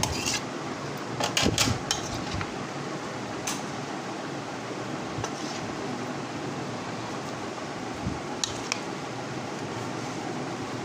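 Steady background hum, with a few short clinks and scrapes of a metal spoon in a serving bowl as boiled beans are tipped in and stirred through chickpeas and potato; the clinks cluster in the first two seconds and again about eight seconds in.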